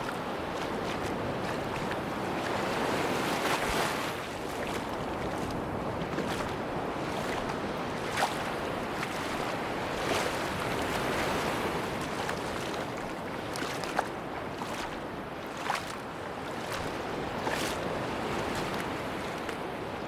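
Sea waves washing onto a beach: a steady rush of surf that swells and falls back every several seconds, with a few scattered sharp clicks.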